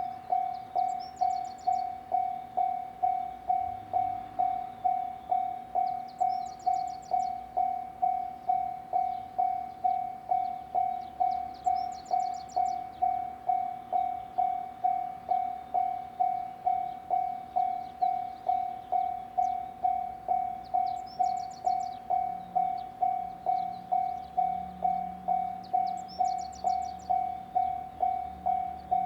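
Japanese railway level-crossing alarm ringing: a single electronic bell tone struck evenly about twice a second, warning that a train is approaching a barrierless third-class crossing.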